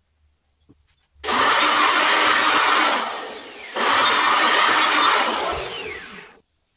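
Bosch electric hand planer running across the old wooden level, two passes of about two seconds each with a short dip between them.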